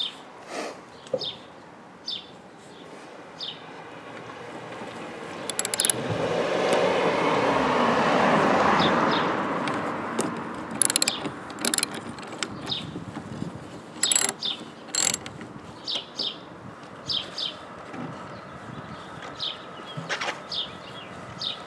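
Ratchet wrench clicking in short runs as a socket turns the retaining nut on a car's rear wiper arm. A broad rushing noise swells and fades for several seconds in the middle.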